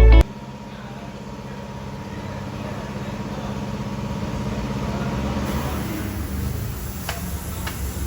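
Motorcycle engine running steadily, swelling slightly in level midway and easing off again, with a couple of faint ticks near the end.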